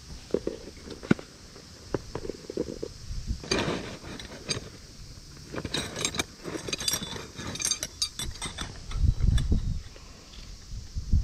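Metal tent pegs clinking and rattling against each other as a bundle of steel pegs and then titanium pegs are handled and pulled out of a fabric peg case, with bag rustling. The clatter is busiest in the middle, and a low rumble of handling noise comes near the end.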